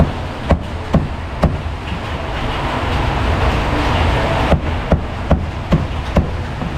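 Meat cleaver chopping roast duck on a chopping board: four quick chops about half a second apart in the first second and a half, then five more in a steady rhythm in the second half.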